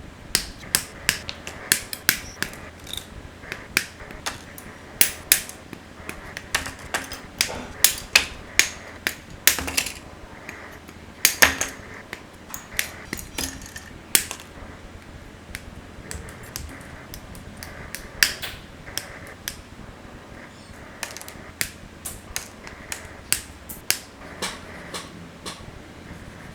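Irregular sharp clicks and snaps of hard plastic from a Gunpla plastic model kit being worked by hand, with many clicks over the first half and fewer near the end.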